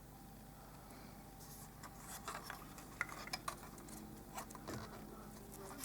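Faint handling noise on a workbench: scattered small clicks and light taps with some rubbing, as small hard objects are moved and set down.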